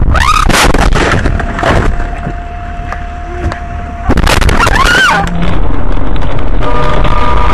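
Dash-camera audio of a crash with a bus skidding on a snowy highway. A steady tone holds for a few seconds, then a sudden loud impact comes about four seconds in as the windshield cracks. Loud road noise from the next car follows, with steady tones near the end.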